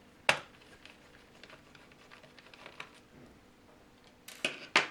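Small, sharp clicks and taps of a screwdriver, screws and plastic parts being handled during laptop disassembly. There is one loud click just after the start, faint ticks in between, and a quick run of clicks near the end.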